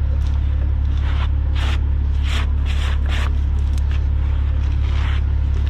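Dirt being scraped off a bulldozer's tracks, about nine short scrapes scattered over a steady idling diesel engine.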